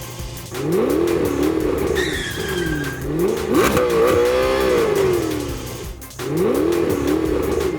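Car engine sound effects revving up and down over and over, with squealing tyres, over background music.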